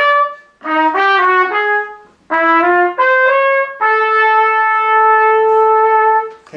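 Trumpet playing a twelve-tone row: short notes in a few quick groups, then one long held note near the end.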